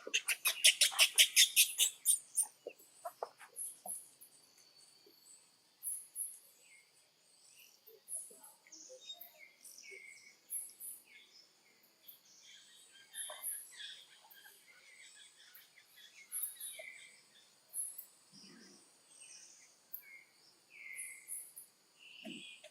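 Birds chirping, with short high calls scattered throughout over a steady high-pitched drone. A loud, rapid, high-pitched trill sounds in the first two seconds.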